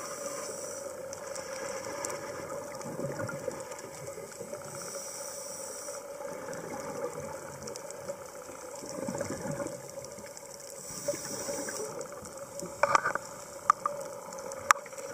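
Underwater sound of a scuba diver breathing through a regulator: bursts of bubbles about every five to six seconds over a steady underwater hum, with a few sharp clicks near the end.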